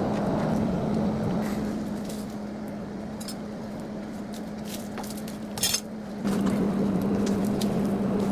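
Motor-driven grinder running with a steady hum while a forged knife blade is ground on it. The grinding noise is louder at the start and again from about six seconds in, with scattered sharp metallic clinks, the loudest just before the louder stretch.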